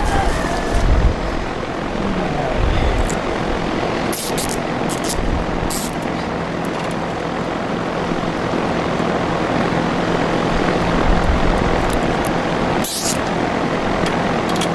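Steady rushing air noise of a large drum fan running, with a faint low hum under it. A few sharp clicks, about four, six and thirteen seconds in, come from a plastic zip tie being worked around a mower handle.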